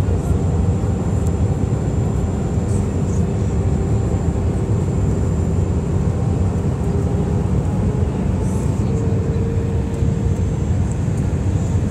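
Steady cabin roar of an Airbus A319 in flight, engine and airflow noise heard from a seat over the wing, with faint humming tones running through it.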